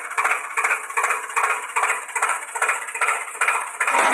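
Tractor engine chugging at a slow, even idle, about two beats a second over a steady hum. Near the end it changes abruptly to a louder, dense continuous running sound.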